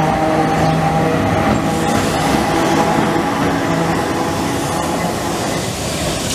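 Vintage electric tramcar running past close by on street track, with a steady whine over the rumble of its wheels on the rails. The whine fades about four seconds in as the tram moves away.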